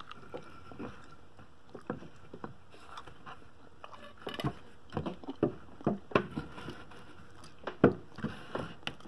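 Wooden table leg being worked up onto the corner of a wooden layout table frame: scattered wooden knocks and scrapes, more frequent in the second half, with the loudest knock near the end.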